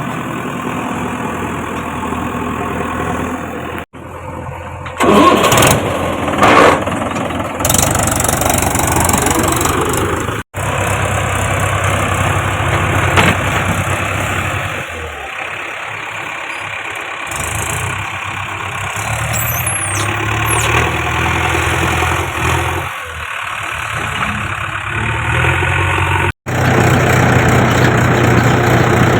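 Diesel engine of heavy farm and earthmoving machinery running steadily, with a few loud rough noisy bursts about five to seven seconds in. The sound cuts off abruptly three times where separate clips are joined.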